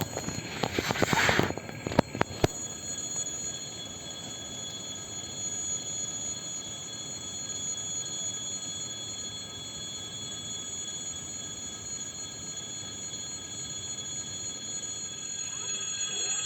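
A brief hiss with rapid clatter and two sharp clicks, then a steady electrical hum with several constant high-pitched whining tones from an EG2Tv Ivolga electric train.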